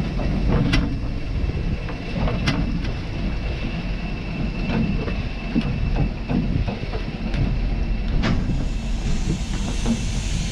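Railway train moving slowly on the track, with a steady low rumble and several sharp metallic clanks. A hiss comes in near the end.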